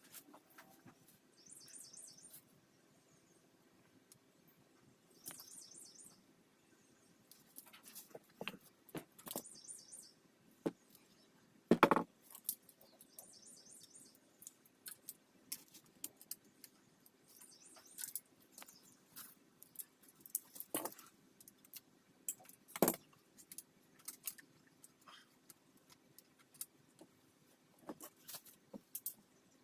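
Hand tools and metal parts clinking and knocking during assembly work on a dirt bike. The sound is irregular taps, with several short runs of fast, even clicking and two louder knocks.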